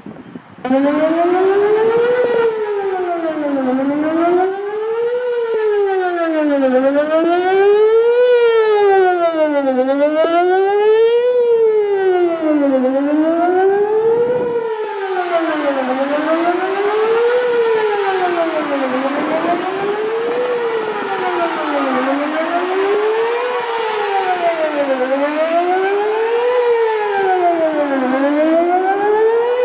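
Whelen WPS-4008 electronic outdoor warning siren sounding its monthly test: a loud wail that rises and falls in pitch about every two seconds. It starts suddenly about half a second in.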